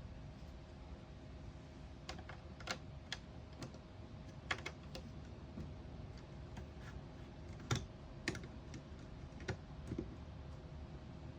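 Light hand taps, about a dozen at uneven intervals, made to trigger a Snap Circuits clap-activated sound circuit.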